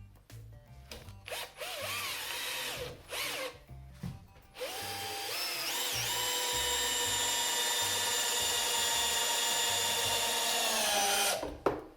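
Bosch UniversalImpact 18 cordless drill-driver, set to drill mode with no clutch, driving a long screw into wood. A few short trigger bursts come first, then a long run that winds up in pitch and holds steady for about seven seconds before cutting off abruptly, with a knock just after. In drill mode the tool has full torque, enough to sink the screw.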